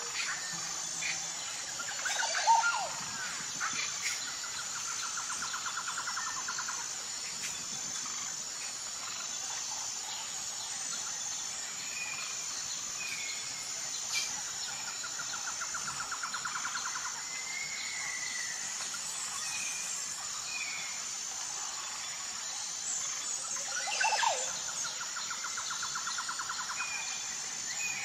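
Nature ambience: a steady high insect drone with scattered bird chirps over it. Three times a rapid buzzy trill repeats for a couple of seconds. A louder call sounds about two and a half seconds in and again near the end.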